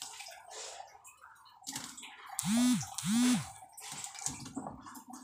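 Two short pitched calls in quick succession about halfway through, each rising and then falling in pitch, over faint handling noises.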